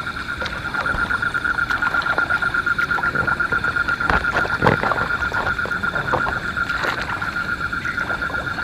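A steady night chorus of calling animals: one high, rapidly pulsing chirr that never stops. A few sharp knocks come about halfway through.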